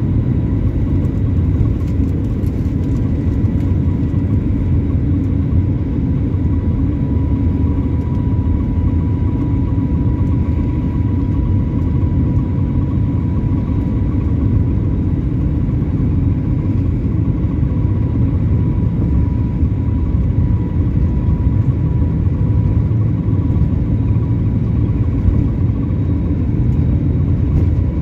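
Airliner jet engines heard from inside the cabin, running steadily at low power while the aircraft taxis: an even low rumble with a thin steady whine above it.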